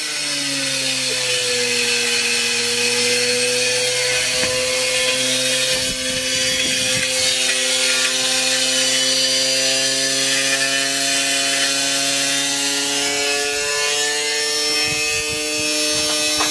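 Washing machine wrecked by an iron weight, its motor still running: a steady whine that dips slightly at first and rises a little near the end, with scraping and rubbing of broken parts.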